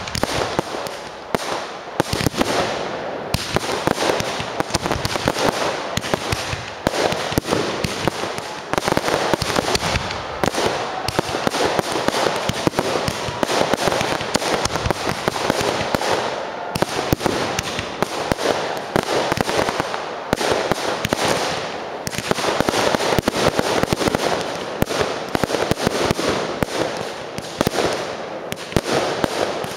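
Fireworks display: a rapid, continuous barrage of shell bursts and bangs, one on top of the other, with brief lulls about two to three seconds in and about halfway through.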